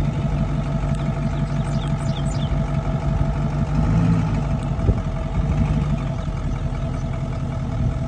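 An engine running at a steady speed, a constant low hum with no change in pitch. A few quick, high, falling chirps about two seconds in.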